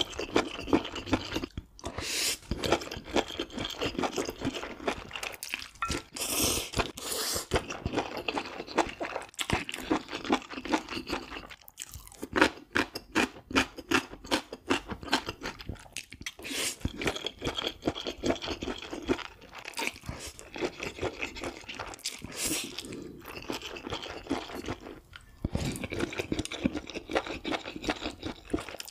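Close-miked eating of saucy spicy noodles: several long, loud slurps as strands are drawn in from chopsticks, with wet chewing and rapid mouth clicks between them.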